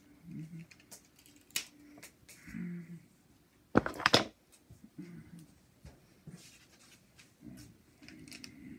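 Adhesive tape being pulled and handled: scattered clicks and rustles, with a short, loud crackling rip about four seconds in.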